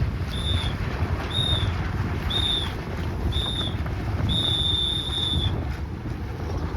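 Sailing race start timer beeping out the last seconds of the countdown: four short high beeps a second apart, then a long beep a little over four seconds in that marks the start. Wind rumbles on the microphone underneath.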